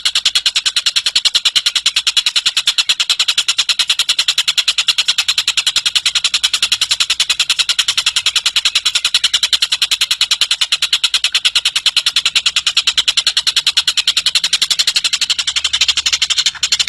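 A tengek cililin bird giving a fast, continuous, high-pitched ticking trill of about eight or nine notes a second, with a brief break near the end.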